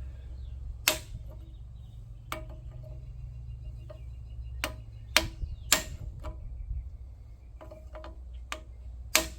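Irregular sharp metallic clicks and knocks, about seven of them, as a 7/8-inch bolt is worked into a mini excavator's pivot, over a steady low hum.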